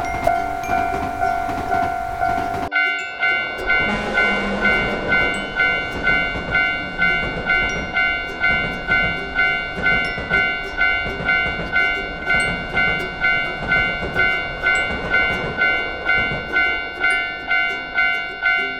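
A bell-like electronic tone dinging over and over, evenly, a little under twice a second. About three seconds in the background noise cuts away suddenly while the dinging carries on.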